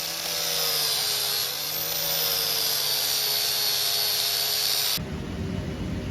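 A small high-speed power tool whining steadily, its pitch dipping briefly twice as it bites into the metal. It cuts off abruptly about five seconds in, replaced by a low rumbling noise.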